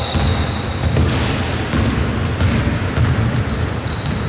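Basketball being dribbled on an indoor court, with players' sneakers squeaking briefly a few times as they run.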